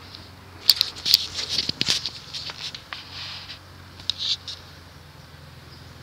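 Korvettes (Frigid) 20-inch four-blade box fan running with a steady, buzzy motor hum. About a second in, loud, high clicking and chattering joins it for a couple of seconds, and again briefly near four seconds.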